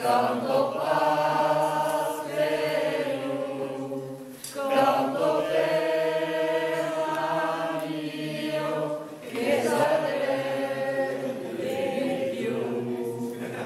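A mixed group of men and women singing a song together, in long held phrases with short pauses about four and nine seconds in.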